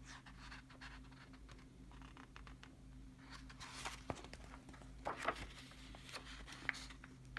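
Faint paper rustling and small handling clicks, as of a picture book's pages being turned and smoothed, over a steady low electrical hum.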